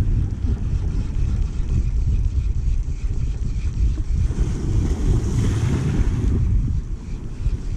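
Wind buffeting the microphone in a loud, steady low rumble, with waves washing over the shallow rocky shore.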